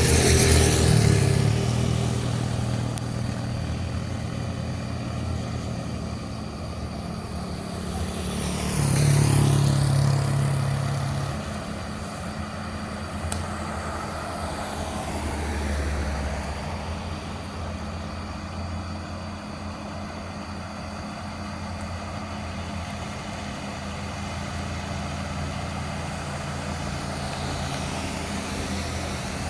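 Heavy vehicles passing on a steep hill road, their engines running steadily under swelling and fading road noise. The loudest pass-bys come about a second in and again around nine to ten seconds, and another vehicle approaches near the end.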